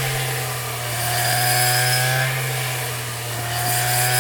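Small engine running, its pitch slowly rising and dipping as the load changes.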